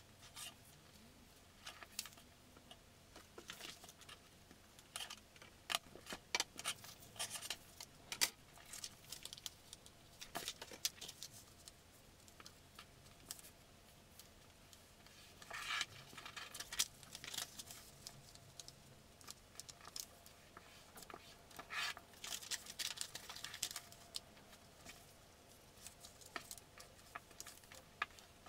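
Faint paper handling: a sheet of paper rustling and crinkling in short bursts as it is pressed flat, folded and creased by hand, with light clicks and taps.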